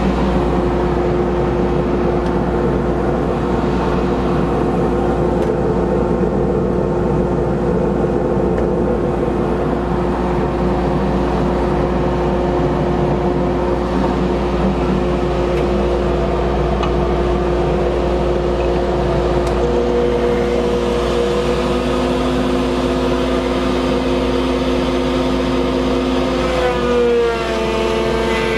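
Woodshop dust collector running steadily with a loud, even whoosh and hum. Near the end a router motor starts and its whine climbs in pitch up to full speed.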